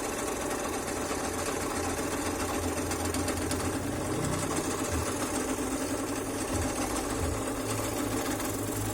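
Scroll saw running steadily, its fine blade going up and down as it cuts wood.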